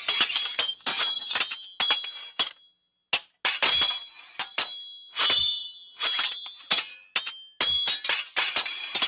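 Sword blades clashing: a rapid series of sharp metal-on-metal strikes, each with a high ringing tail, with a brief pause about three seconds in.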